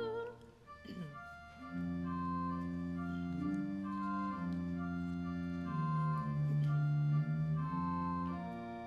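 Pipe organ playing slow, held chords that change every second or two, just as a sung phrase ends.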